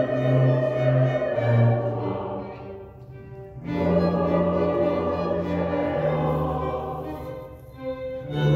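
Background music with long held notes, quieting about three seconds in and swelling back up half a second later.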